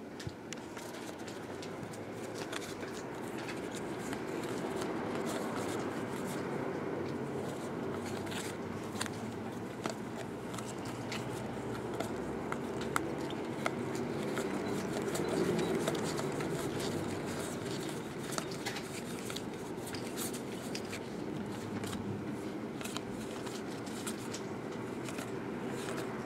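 Baseball cards being thumbed through one at a time by hand: an irregular run of light clicks and scrapes as card stock slides over card stock, over a steady low background hum.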